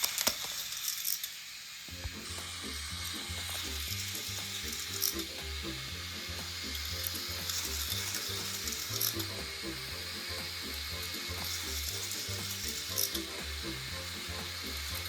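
K'nex roller coasters running: motor-driven plastic chain lifts clattering steadily and cars rattling along the plastic track, with a few sharper clicks.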